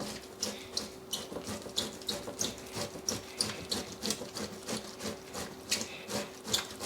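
A tomato being grated on a hand grater: a wet rasping stroke repeated about three times a second.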